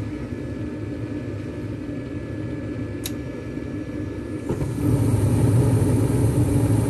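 Gas furnace start-up: the draft inducer motor hums steadily, a light click sounds about three seconds in, and about four and a half seconds in the burners ignite and a louder, steady rumble of the burner flames joins the inducer.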